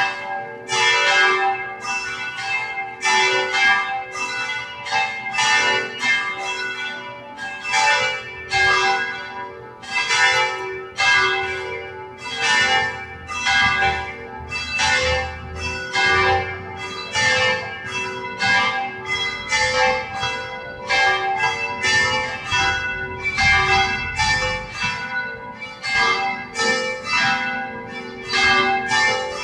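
Church bells ringing a wedding peal: several bells of different pitches struck one after another, about one and a half strokes a second, each stroke ringing on under the next.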